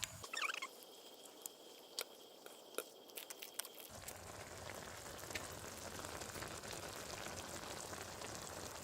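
Ramen broth boiling and sizzling in a frying pan over a campfire, with scattered sharp clicks and a short squeak in the first few seconds, then a steady even hiss from about four seconds in.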